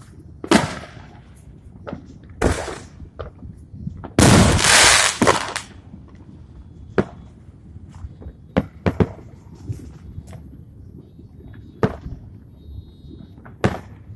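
Fireworks going off: a few booming bursts in the first few seconds, the loudest and longest about four seconds in, followed by sharp single cracks a second or two apart.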